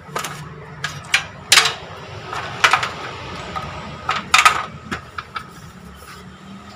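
Irregular clicks, knocks and light rattling of computer parts being handled and fitted in a PC case, with the loudest knocks about a second and a half in and again around four and a half seconds in.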